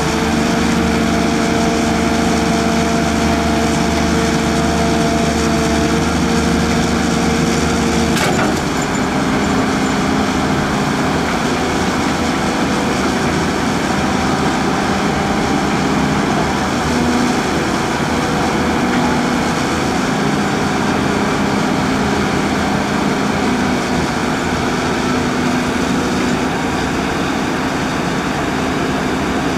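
Diesel engines of two tracked excavators running hard, with a Caterpillar 320 close by, while their buckets work wet mud and give a rough cracking and scraping noise. A single sharp click comes about eight seconds in, and after it the engine tone shifts and varies.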